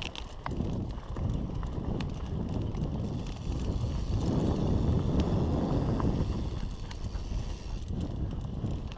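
Mountain bike rolling fast over a rough dirt trail: a steady rumble of tyres and rattling from the bike, with scattered sharp clicks and knocks.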